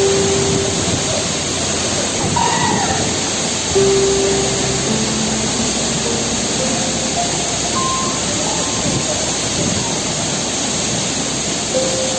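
Steady rushing of falling water from a waterfall, with soft background music and a few held notes over it.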